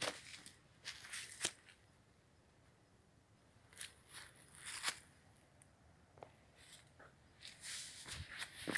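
Footsteps crunching on dry leaf litter and twigs: a few steps, a pause of about two seconds, then more steps, quickening near the end.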